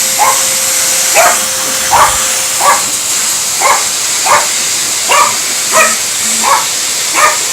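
A dog barking repeatedly at a running vacuum cleaner, about ten sharp barks, roughly three every two seconds, over the vacuum's steady hiss.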